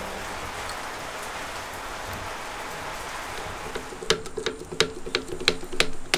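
Rain falling as a steady hiss, which thins and gives way about four seconds in to a string of sharp, irregular clicks and knocks.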